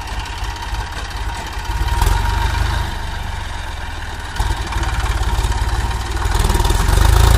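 HMT 3522 tractor's diesel engine running hard under load, hitched to a loaded trailer on soft ground. The revs surge about two seconds in, again about halfway, and climb higher near the end.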